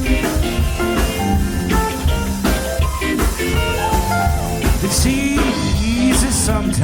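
A five-piece rock band playing a song with a steady drum-kit beat, bass, guitars and keyboards, with a guitar line running over the rhythm.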